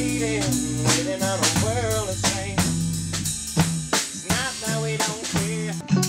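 Band music: drums keep a steady beat with snare and bass drum, over a held bass line and a melody that glides up and down.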